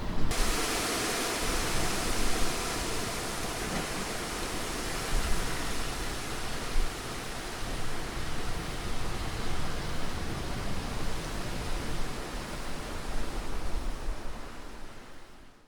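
Strong storm wind blowing through trees: a dense, full hiss of rushing air and tossing foliage that surges and eases in gusts, then fades out near the end.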